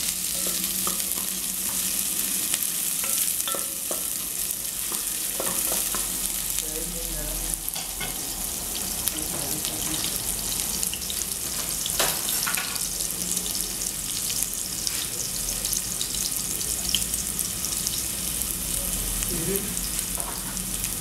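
Chopped red onions frying in a large aluminium pot: a steady hiss, with a few scattered clicks.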